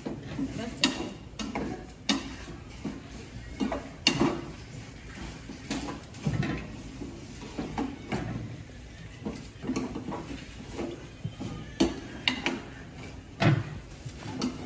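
A toddler's hand slapping and tapping the lid of a large aluminium cooking pot: irregular knocks and light clanks, about one a second.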